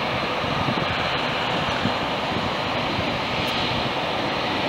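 Jet airliner engines running steadily, a distant, even roar with no change in pitch.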